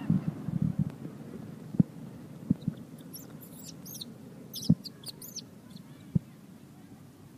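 Baby macaque squealing in a quick series of short, very high-pitched cries for a couple of seconds while another monkey grabs at it: distress at being disturbed. A few dull knocks are heard as well.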